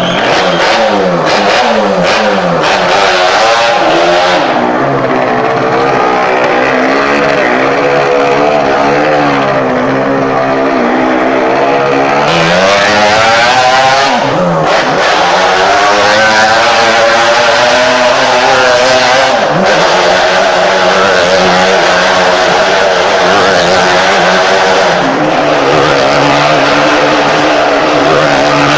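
Motorcycle engine riding laps around a wooden wall-of-death drum, revving, its pitch swinging up and down again and again as it circles and changes throttle.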